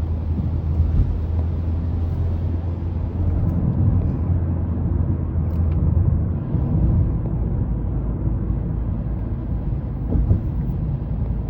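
Road noise inside a Mazda 3's cabin while driving on a wet road: a steady low rumble of tyres and drivetrain with wind noise over it. The low drone shifts in pitch about six and a half seconds in.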